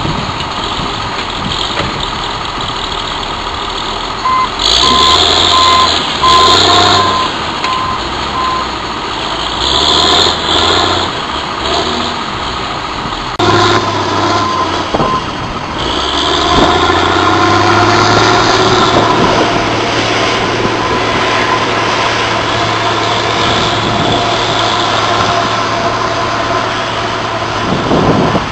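Tracked feller buncher excavator's diesel engine working, its revs rising and falling as it handles trees, with a travel alarm beeping about twice a second from about four seconds in and again briefly around halfway. Louder rushing surges come over the engine a few times early on.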